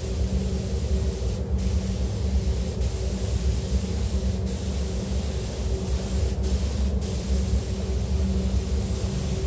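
Compressed-air spray gun hissing as it sprays a glass coating onto a car's paint. The hiss drops out for a split second about five times, over a steady low hum.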